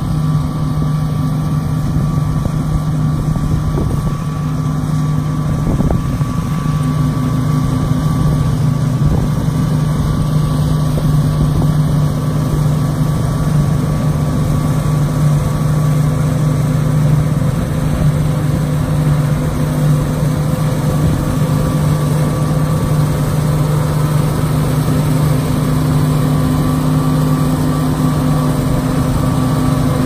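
John Deere T550 Hillmaster combine harvester running at harvesting load while cutting standing wheat: a steady engine and machinery drone with a constant low hum.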